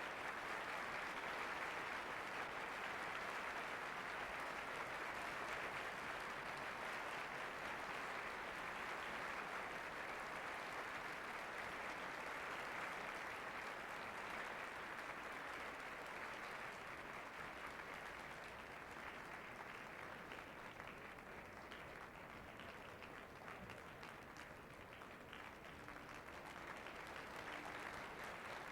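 Concert-hall audience applauding in a dense, continuous patter of clapping at the close of an orchestral performance. It eases off a little after about twenty seconds, then picks up slightly near the end.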